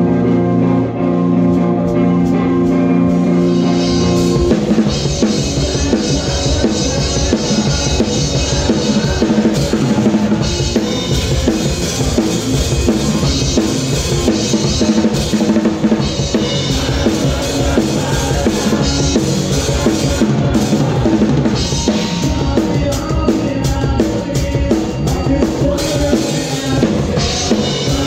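Rock band playing with the drum kit to the fore: a chord is held for the first few seconds, then the full band comes in at about four and a half seconds with kick, snare and cymbals driving a steady beat.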